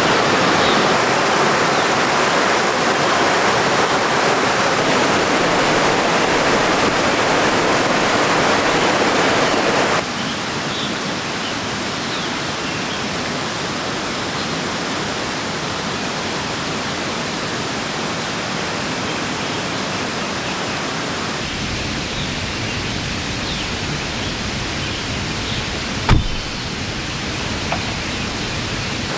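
Mountain stream rushing over rocks, a loud, steady noise of water. About ten seconds in it drops to a quieter, more distant rush of water. Near the end a single sharp knock stands out.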